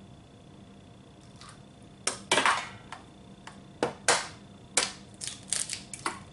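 Eggs being cracked into a mixing bowl: a string of sharp taps and clicks of eggshell against the bowl rim, with shell pieces clicking, starting about two seconds in and coming in quick clusters.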